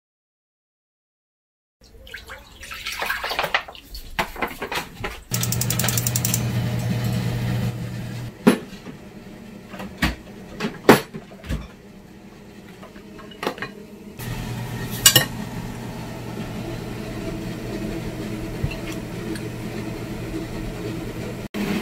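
Silent for the first couple of seconds, then plastic food-storage containers and dishes clatter and clink, with a few sharp knocks, as side dishes are set out and spooned into bowls. A steady low hum runs underneath for stretches.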